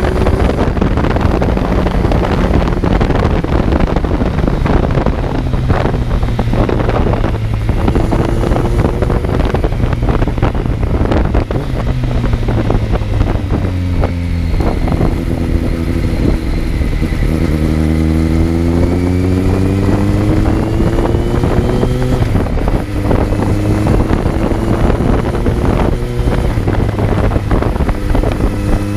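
Kawasaki Z900's inline-four engine heard on board while riding, its pitch climbing and stepping as it runs through the gears, falling as the bike slows about halfway through, then rising again under acceleration. Wind rushes over the microphone throughout.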